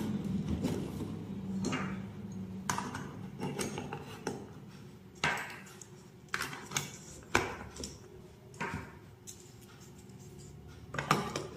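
Light bulbs clicking and scraping against plastic lampholders as they are fitted one by one, with knocks on a wooden board. The sound is a scattered series of separate sharp clicks, the loudest in the middle and a short cluster near the end.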